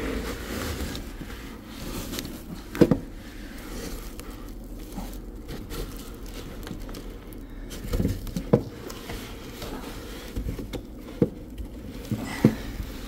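Handling noise from carrying a heavy machine wrapped in foam and plastic: rustling and scraping of the wrapping, footsteps on a tiled floor, and a few scattered sharp knocks.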